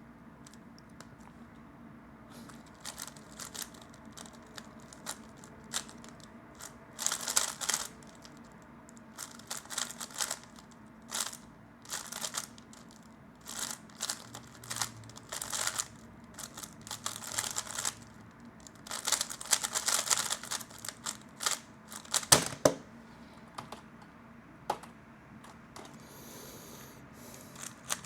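A 3x3 Rubik's cube being turned fast during a timed solve: bursts of quick plastic clicking and rattling as the layers turn, broken by short pauses. One sharp knock comes about three-quarters of the way through.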